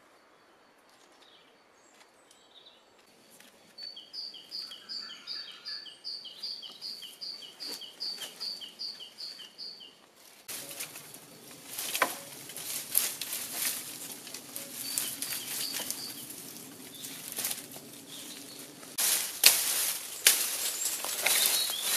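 A songbird repeats a two-note phrase, a high note then a lower one, about three times a second. About halfway through, dry straw and brush rustle and crackle as they are handled, with sharp cracks near the end.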